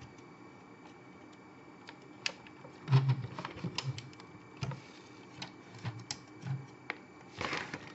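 Scattered light clicks and knocks of a transformable Optimus Prime toy figure's parts being handled, pushed and pried at its tabs and panels, with a cluster of louder low knocks about three seconds in and a brief rush of noise near the end.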